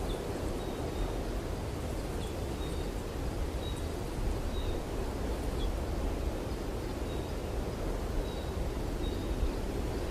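Steady wind rumbling across the microphone outdoors, with a small bird's faint, short high chirps repeating about once a second.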